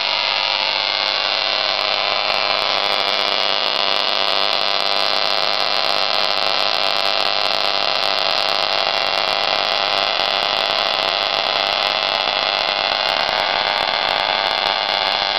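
Homemade Tesla coil running, a loud, steady electrical buzz with hiss as sparks stream from the tips of a wire stick figure mounted on its foil-covered top load.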